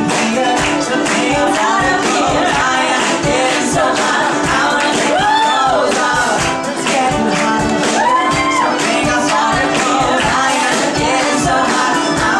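A live pop vocal duo sings with a band: voices over ukulele and a steady beat, the melody swooping up and down in long held notes.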